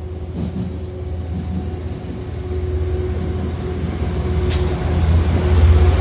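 Amtrak passenger train led by a GE Genesis diesel locomotive approaching and passing close by: a low engine and wheel rumble growing steadily louder as it nears. A brief click is heard about four and a half seconds in.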